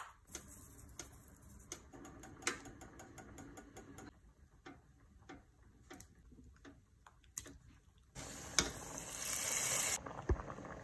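Metal spoon clinking and scraping against a steel bowl and pot as coconut paste is added to the greens, a scattering of light taps. About eight seconds in, a loud steady hiss of the pot steaming at the boil takes over, and it cuts off suddenly about two seconds later.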